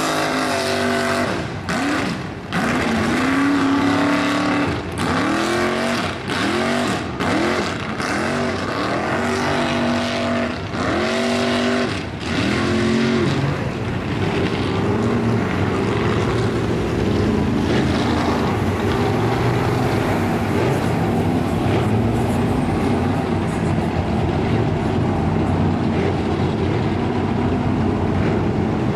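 Mud bog truck engine revving hard, its pitch rising and falling about once a second as the truck churns through the mud pit. About halfway through it gives way to a steadier, loud high-revving engine as a truck pushes on through the water.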